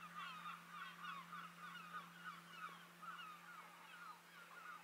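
A flock of birds calling: many short overlapping calls, several a second, growing fainter toward the end, over a steady low hum.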